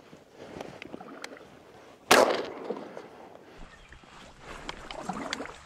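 A single shotgun shot about two seconds in, sharp and the loudest sound, with a short fading tail. Softer rustling and clicks of gun and clothing handling come before and after it.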